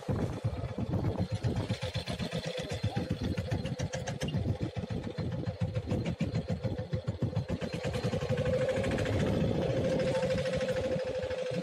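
Fishing boat's engine running with fast, even pulses and a steady note that becomes smoother and slightly louder about eight seconds in.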